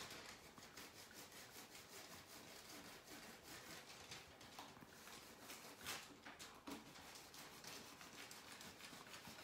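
Faint rubbing of a small handheld craft iron being pushed over parchment paper on a wooden stool seat, with a few light ticks.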